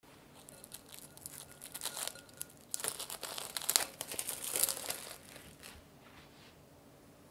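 Plastic cling wrap crinkling as it is peeled off a glass bowl, a run of crackles that grows loudest about three to five seconds in and dies away near the end.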